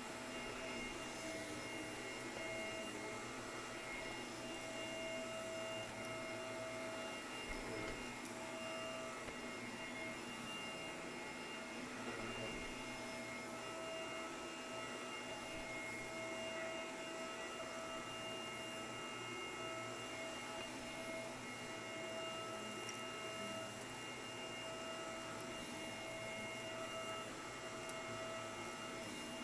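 Shark vacuum cleaner running steadily, its motor giving a constant whine of several held tones.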